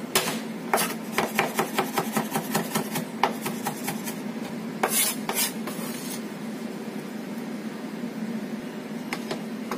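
Chinese cleaver chopping fresh ginger on a wooden cutting board: a quick run of light knocks, about six a second, for the first few seconds, then a couple of scraping sweeps of the blade across the board about five seconds in, as the ginger is minced and gathered up.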